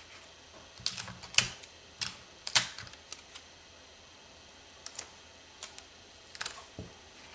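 Hands handling and pressing down the paper pages of a spiral-bound logbook while taping a checklist page onto it: short, scattered clicks and rustles of paper and tape, irregularly spaced, a few close together about a second in and others spread over the rest.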